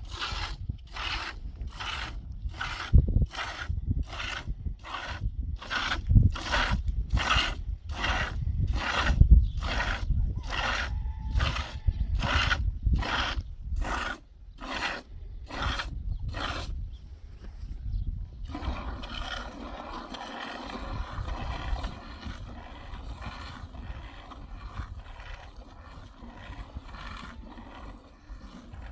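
A cow being milked by hand: jets of milk squirt into a pail in a steady rhythm of about two strokes a second. About two-thirds of the way through, after a brief pause, the squirts go on softer and less distinct.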